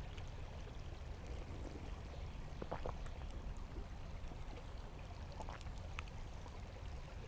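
Creek water running steadily over its bed, with a few faint clicks.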